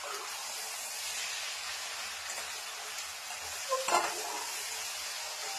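Cabbage and potato sabzi sizzling in a pan on the stove, a steady high hiss, with a brief clatter about four seconds in.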